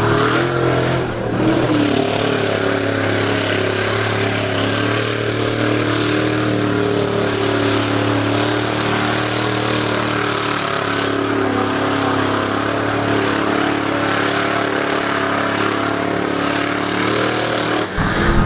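Mud truck's engine running hard at steady high revs, its pitch holding nearly constant before breaking off abruptly near the end.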